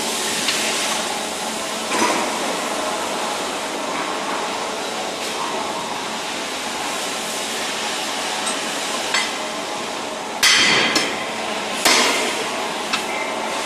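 Hammer striking the steel parts of a train bogie's air brake gear: a few sharp metallic blows, the two loudest near the end, over steady workshop noise.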